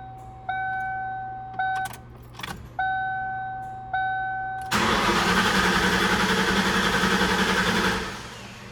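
A car's dashboard warning chime sounds in a few fading tones. About four and a half seconds in, the 1995 Mustang GT's starter cranks the engine for about three seconds. This is a loud, even rushing with a fast ripple, the first try after a new fuel pump and pressure regulator were fitted.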